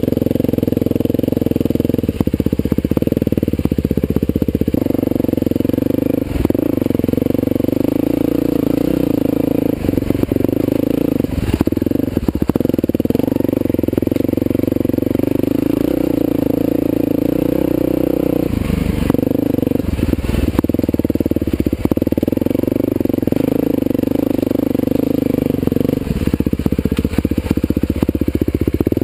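Husqvarna TE511 dirt bike's single-cylinder four-stroke engine running at a steady trail pace, its pitch wavering slightly with the throttle, with a few brief knocks along the way.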